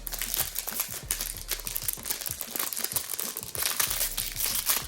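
Plastic packaging crinkling and crackling continuously as it is handled.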